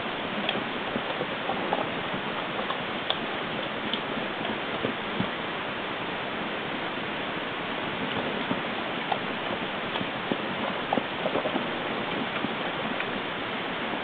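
Steady hiss with many small scattered ticks and clicks.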